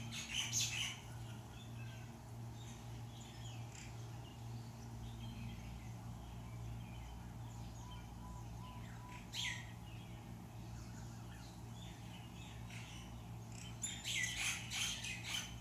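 Several small birds chirping and calling, with quick clusters of sharp chirps near the start, once around the middle and again near the end, and fainter calls in between. A steady low hum runs underneath.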